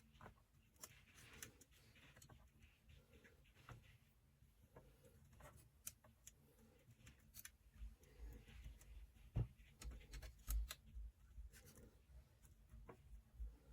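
Faint, scattered clicks and light rustling of hands handling PC power cables and plastic connectors, with a few soft low thumps about eight to eleven seconds in.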